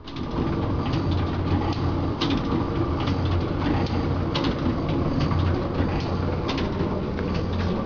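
Book stitching machine running: a steady low hum with a constant drone, and frequent irregular clicks and knocks from its stitching mechanism.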